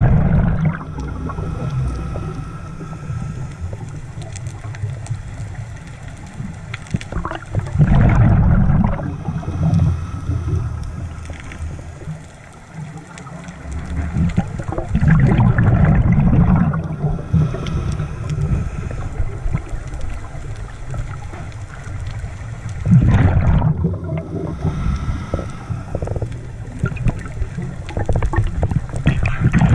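Underwater sound of a scuba diver breathing: loud gurgling, rumbling bursts of exhaled bubbles about every seven to eight seconds, with quieter water noise between.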